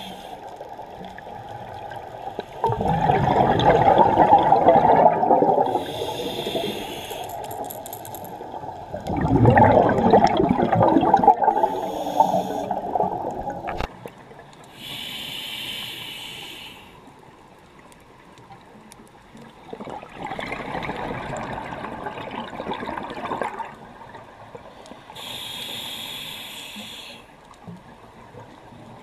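Scuba diver breathing through a regulator underwater: three long rushes of exhaled bubbles, with the high hiss of inhalations through the regulator in between.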